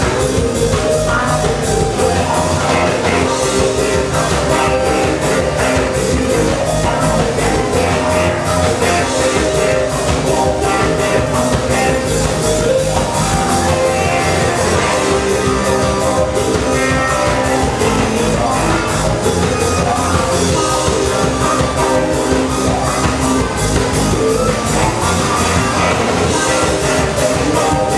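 Electro-jam band playing live, amplified through the club: a drum kit keeps a steady beat under electric guitar and keyboards, dense and loud without a break.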